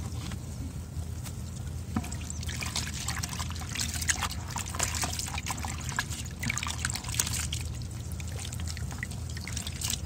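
Muddy water splashing and trickling in a plastic bucket as a bamboo sieve basket is lifted out and a hand stirs through the water, rinsing freshly caught fish. A run of small irregular splashes is busiest in the middle.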